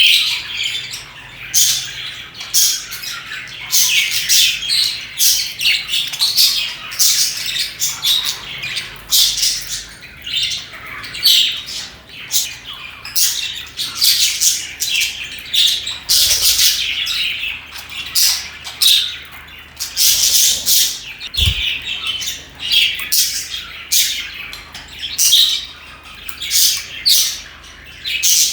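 A colony of budgerigars chirping and squawking, many short high calls overlapping without a break.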